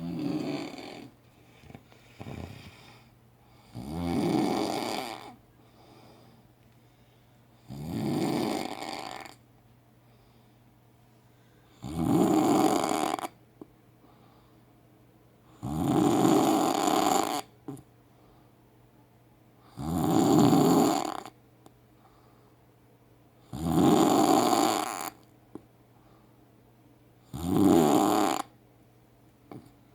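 Loud snoring: about eight long snores, one roughly every four seconds, each lasting a second or so, with quiet breaths between.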